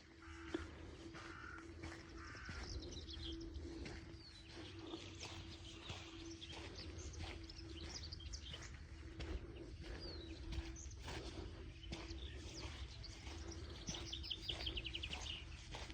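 Small birds chirping and trilling repeatedly, over a low steady rumble with scattered clicks.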